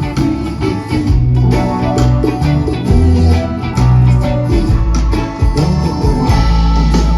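Band music led by guitar over a steady bass line, with regular percussion beats.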